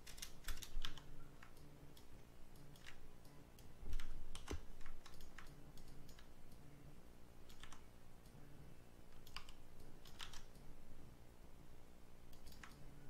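Computer keyboard keys and mouse buttons clicking at irregular intervals, a few taps at a time, as someone works at a computer.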